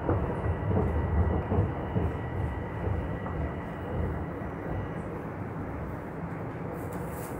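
Toronto subway train rumbling as it slows and comes to a stop at the platform. The low rumble is loudest in the first couple of seconds, then settles to a steadier hum with a faint high whine.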